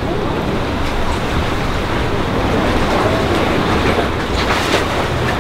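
Steady rushing wind on the microphone over the wash of open water.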